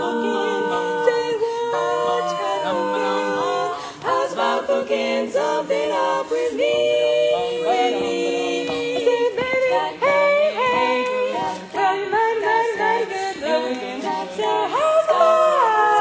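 Women's barbershop quartet singing four-part a cappella close harmony, with held chords and stretches of quick moving notes.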